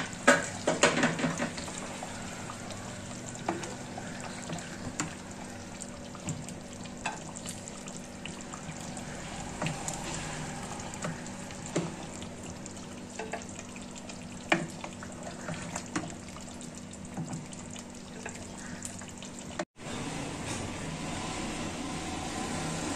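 Curry sizzling in an open steel pressure cooker while a wooden ladle scoops and knocks against the pot, with a quick run of knocks about a second in and scattered single knocks after.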